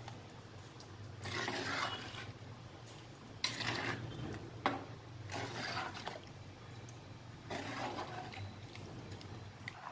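Rice being stirred into water in a clay pot with a ladle: about four wet, sloshing strokes a couple of seconds apart and one sharp clack of the ladle against the pot about halfway through, over a steady low hum.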